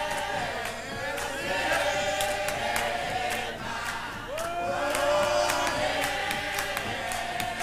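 A church choir singing a hymn with no instruments, many voices holding drawn-out notes, with hand claps keeping time about two or three times a second.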